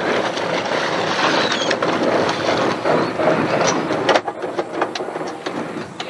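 Steady wind and water noise on an open boat. A few faint, short high calls come from gulls diving over a school of feeding bluefish and striped bass, and a quick run of clicks and knocks comes about four seconds in.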